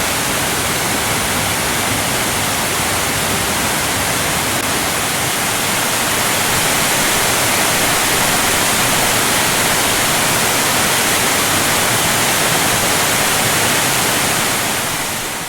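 Waterfall pouring steadily, an even, dense hiss of falling water, starting to fade out near the end.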